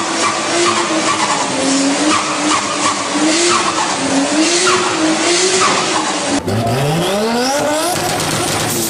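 Turbocharged car at speed, its tyres squealing with a wavering pitch. About six seconds in, an abrupt cut to a car engine revving up, its pitch rising steeply.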